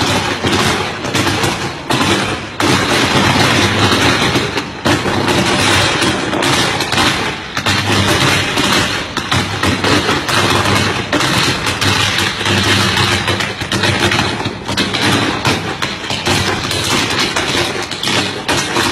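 Firecrackers going off in a rapid, continuous crackle of pops with no breaks, over a steady low hum.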